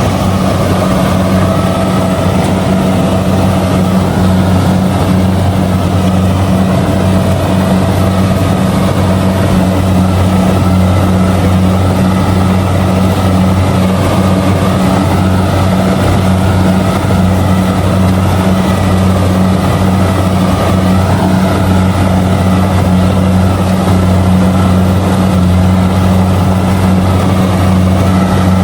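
Kubota DC70G combine harvester's diesel engine running steadily while harvesting rice: a loud, even drone that holds one pitch throughout.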